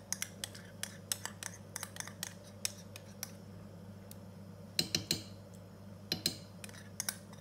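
A metal spoon scraping and clinking against a cup and the pan while dissolved ube powder is stirred into thick milky rice porridge, in scattered light clicks with a few quick clusters about five and six seconds in. A steady low hum runs underneath.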